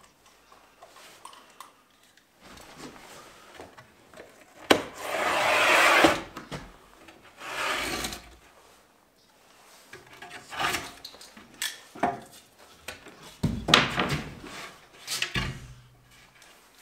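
Drywall panel snapped along its score line being cut through: a sharp click, then two long scraping strokes as a knife slices the paper backing along the fold, followed by scattered knocks and thuds as the separated gypsum pieces are handled against the wall.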